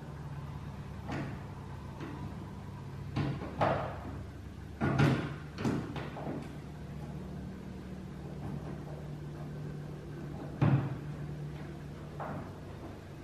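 Short sharp knocks and clunks as a pickup truck's tail-light housing and its parts are handled and fitted into the rear corner of the body, several in a cluster in the first half and a louder single one about three quarters through. A steady low hum runs underneath.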